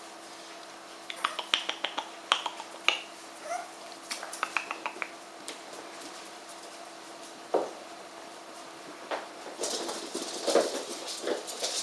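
Norwich terrier puppies playing: bursts of quick clicks and scuffling, with a few short puppy yips and growls that crowd together near the end.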